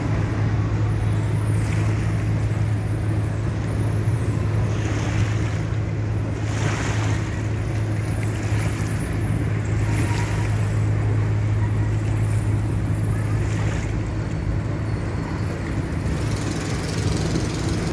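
A steady low engine drone runs throughout, under a wash of wind on the microphone and water noise that swells every few seconds.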